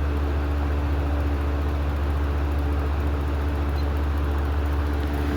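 Lakewood 200 box fan with plastic blades running steadily on medium speed: a constant motor hum under the rush of moving air.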